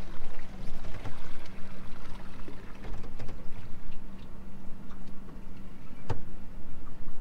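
Boat's outboard motor running at idle with a steady low hum, water splashing and pouring against the hull, and a sharp click about six seconds in.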